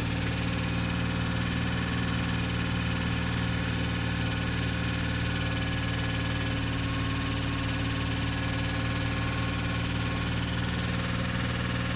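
2005 Chevy Equinox's 3.4-litre V6 idling steadily soon after a cold start, knocking. The owner says the knock happens only until the engine warms up; he first suspected low oil, but the oil level is fine.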